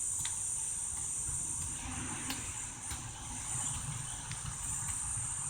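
Steady, high-pitched chorus of insects droning without a break, over a faint low rumble.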